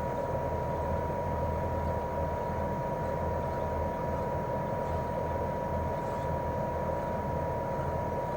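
Daikin R28RMV inverter mini-split outdoor unit running steadily in cooling mode: its twin-cylinder swing compressor hums low while the propeller fan whooshes, with a steady high whine over them.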